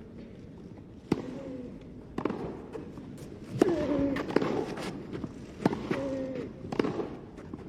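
Tennis rally: rackets strike the ball with a sharp pop about once a second, with short pitched squeaks between the hits.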